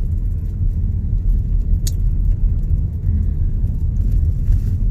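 Car cabin noise while driving: a steady low rumble of tyres and engine, with one brief click about two seconds in.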